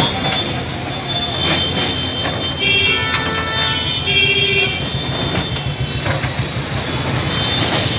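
Busy street traffic with engines running and a vehicle horn sounding twice, about three and four seconds in.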